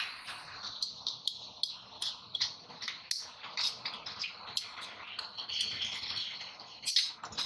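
Irregular sharp metallic clicks and clinks, a few each second, as a large pair of pliers handles lead plates in an open plastic battery case; the loudest click comes near the end.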